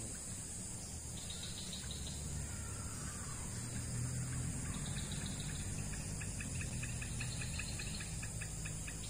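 Insects chirring steadily at a high pitch, with a rapid run of short chirps, about five a second, from about halfway in to near the end. A low steady rumble runs underneath.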